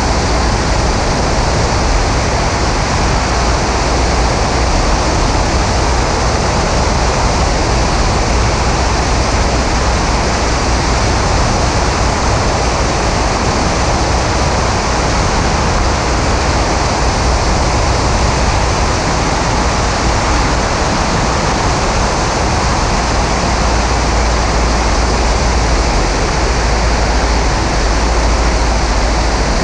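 Steady rushing noise of a Maule M5-180C light aircraft in flight, heard from a camera mounted outside on the wing: the airstream buffets the microphone, with the engine and propeller blended in. It is heavy at the low end and unbroken.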